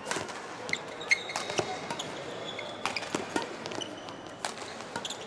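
Doubles badminton rally: sharp smacks of rackets striking the shuttlecock at irregular intervals, mixed with short high squeaks of shoes on the court mat.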